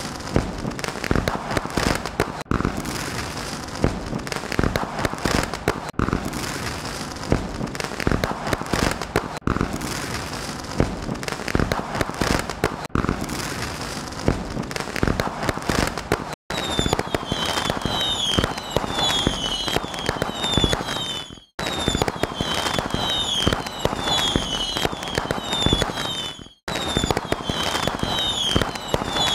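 Fireworks display: continuous dense crackling and popping with many sharp bangs from bursting shells. From a little past the middle, short shrill whistles falling in pitch repeat over the crackle. The sound cuts out briefly three times.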